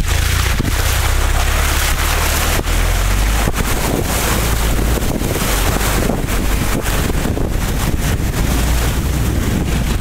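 A car driving through a deep flooded rut: water splashing along the car's side over a steady low engine rumble, with wind buffeting the microphone.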